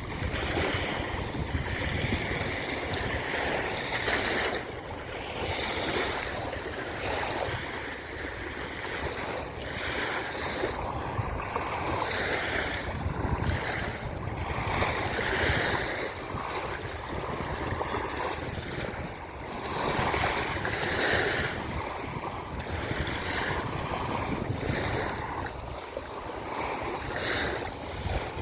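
Small river waves washing onto a sandy beach, a continuous rush of surf that swells and eases, with wind rumbling on the microphone.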